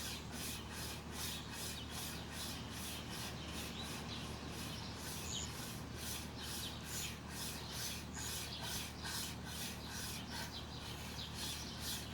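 Braided-wire survival saw drawn back and forth through a tree branch, a steady rasping rub at about three strokes a second.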